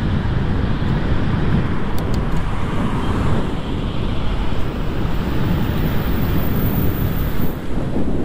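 Wind buffeting the microphone of a camera on a moving bicycle: a steady, loud, rumbling noise.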